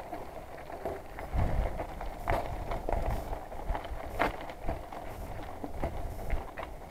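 Mountain bike riding down a dirt and gravel trail: tyres rumbling over the ground, with irregular knocks and rattles from the bike as it goes over bumps.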